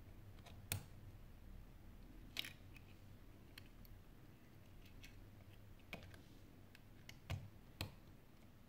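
Small sharp clicks and taps of phone parts being handled and pressed into place inside an opened Sony Xperia Z5 Compact, about five louder ones spread out with a few fainter ticks between, over near-silent room tone.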